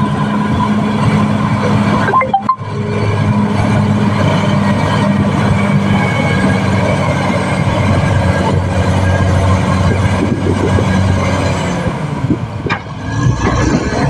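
Caterpillar D6R XL crawler bulldozer working, its diesel engine running steadily under load with the clatter of its steel tracks. The sound dips briefly twice, once near the start and once near the end.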